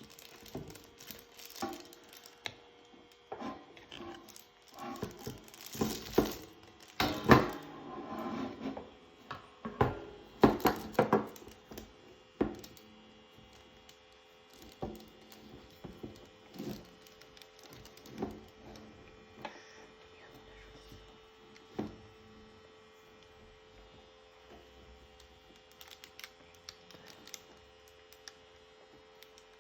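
Clicks, knocks and short rustles of hands handling equipment and packaging, busiest in the first half and then thinning to occasional single clicks, over a steady electrical hum.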